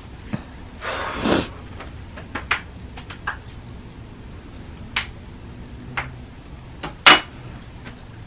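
Small objects being handled on a wooden dresser top: a short scraping rustle about a second in, then scattered knocks and clinks, the loudest near the end with a brief ring.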